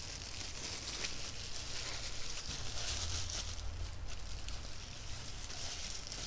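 Rustling and crinkling of the camcorder's packaging as it is handled and unwrapped, with a few light clicks and taps.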